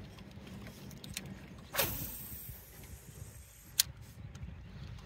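A sudden swish that falls quickly in pitch about two seconds in, then a single sharp click near four seconds, over a low steady rumble.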